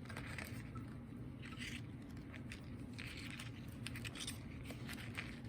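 Faint, intermittent rustling and scraping of thin string and cardstock being handled, over a low steady room hum.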